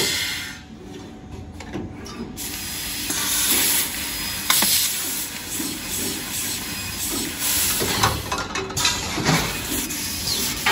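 Laser tube-cutting machine cutting a steel tube: a steady hiss of the cutting head's gas jet. The hiss drops away about half a second in and returns around two seconds in, with a few brief louder spurts.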